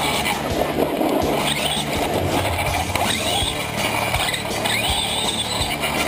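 Traxxas Stampede 4x4 VXL RC truck driving over a gravel road, heard from on board: steady crunching and rattling from the tyres and chassis over loose stones, with short knocks, and the brushless motor's whine rising and falling several times as the throttle changes.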